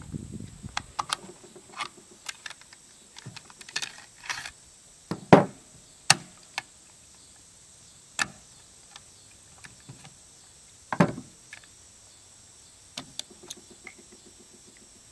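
Scattered clicks and knocks of a Bushmaster ACR rifle's parts being handled and taken apart, with the loudest knocks about five and eleven seconds in.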